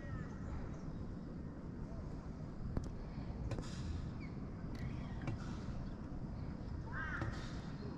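Steady low rumble of wind on the microphone over open water, with a few sharp clicks around the middle. Near the end a bird calls a few times in short arched notes.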